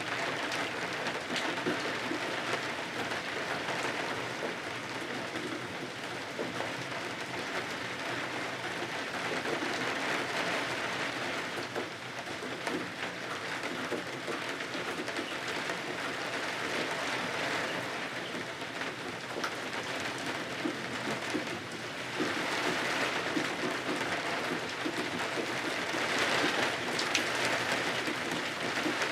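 Steady rain falling against windows, swelling louder and easing off in slow waves every few seconds.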